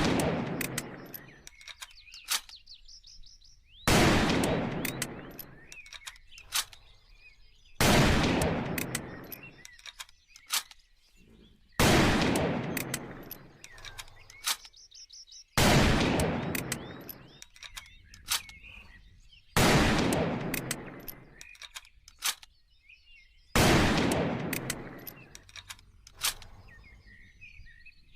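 Sharps 1874 single-shot rifle fired six times, about four seconds apart, each shot a sharp crack followed by a long echo that dies away over about two seconds. Birds chirp faintly between the shots.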